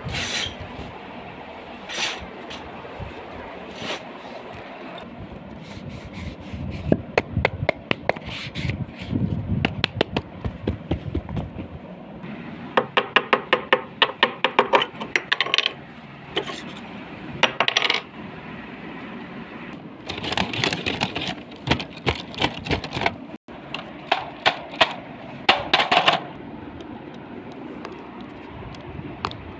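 Small hard objects clinking and rattling: scattered single clicks, a rapid run of clinks midway, then ringing jingles later on.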